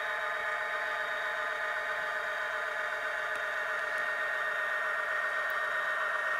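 Tsunami sound decoder playing a steady EMD 710 diesel engine sound through the HO-scale Kato SD90MAC model's small speaker as the locomotive runs, thin and without low rumble.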